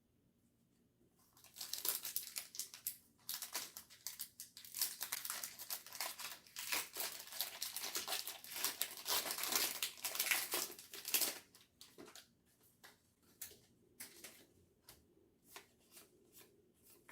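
Foil Pokémon booster pack wrapper being torn open and crinkled for about ten seconds, followed by scattered light clicks as the cards inside are handled.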